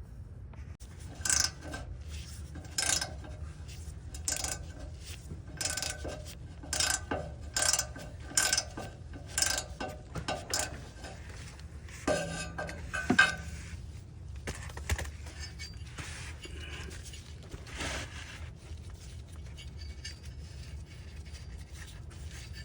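Metal tools and parts clinking: about a dozen separate sharp clinks, roughly one a second, then a few scattered knocks and clatters, over a steady low hum.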